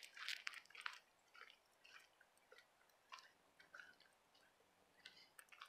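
Faint footsteps crunching through dry fallen leaves, an irregular run of short crackles.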